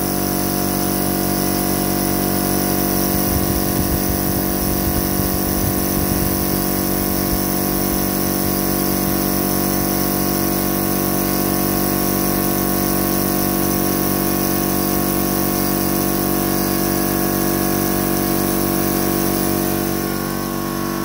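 A 100-litre, 14 CFM air compressor's electric motor and pump running steadily under full load, working hard to refill the tank while sandblasting draws the air off.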